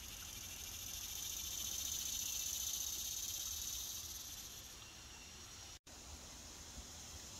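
Steady high-pitched chorus of insects chirring, with no other event standing out. It cuts out for an instant about three-quarters of the way through.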